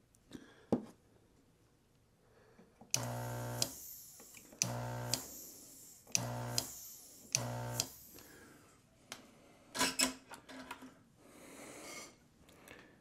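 Vacuum pump of a desoldering iron buzzing in four short bursts about a second and a half apart, each starting and stopping abruptly, as solder is sucked off relay pins on a circuit board. A few sharp clicks come before the first burst and after the last.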